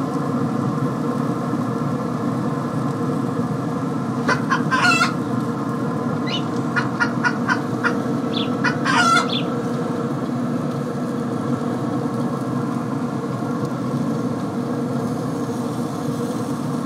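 A steady mechanical hum throughout, with a few short clusters of bird calls, much like fowl, between about four and nine seconds in.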